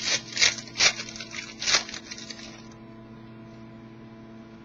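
A hockey card pack's wrapper being torn open by hand: four short ripping crackles in the first two seconds, then only a faint steady hum.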